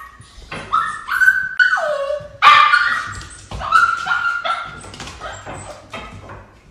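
Puppy whining and yelping in a string of short high-pitched cries, one sliding down in pitch, fading away near the end: separation distress at being left behind a gate.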